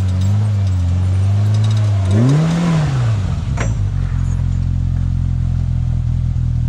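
Off-road vehicle engine working on a rough trail: small throttle blips, then a brief rev that rises and falls about two seconds in, and a single sharp clack about a second later. After that the engine runs on steadily.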